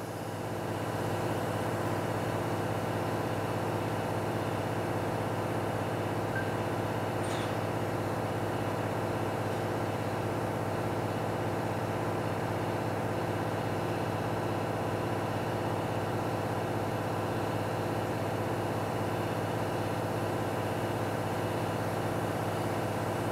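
A steady, even mechanical hum with a low drone, unchanging throughout.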